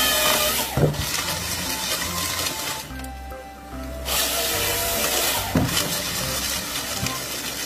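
Background music over a forestry harvester at work. The harvester head's chain saw cuts through a log twice, once at the very start and again about four seconds in.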